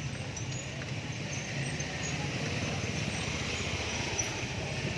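Small motorcycle engine running nearby, amid street noise.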